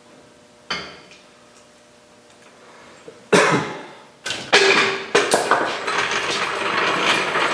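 Steel hand tools knocking on a steel truck frame while cab mount bolts are taken out with a long-handled wrench: a sharp clank about a second in, a louder one about three seconds in, then a few seconds of dense, rapid metallic clatter and rattling.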